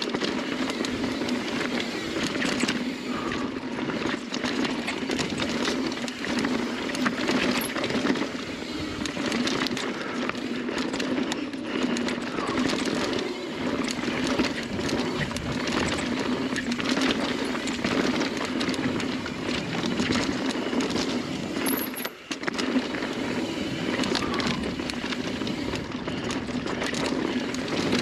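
Mountain bike riding fast down a dirt singletrack: the tyres rolling over dirt and rocks, with steady rattling and clinking from the bike. The noise drops out briefly about three quarters of the way through.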